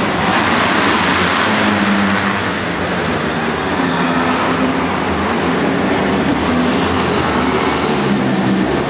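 Several supermoto race motorcycles racing, their engines revving up and down as they take the jumps, loud and continuous.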